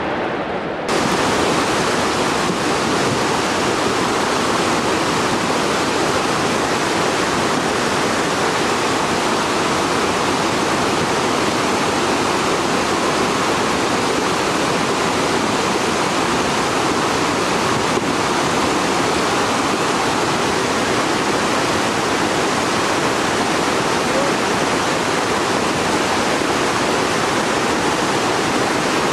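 Steady rush of whitewater rapids in a fast, rocky mountain river, starting abruptly about a second in.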